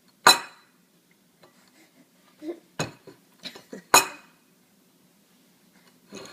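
Cutlery clanking against a hard surface or dishes: three sharp, loud clanks with a short ring, the loudest right at the start and about four seconds in, with lighter clinks between them.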